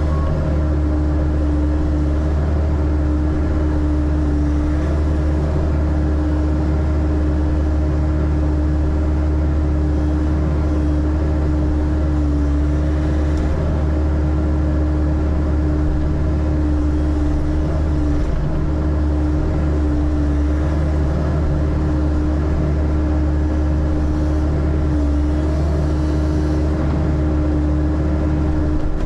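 Engine of a digging machine with a bucket, running steadily under a constant load, with a thin steady whine above its low drone.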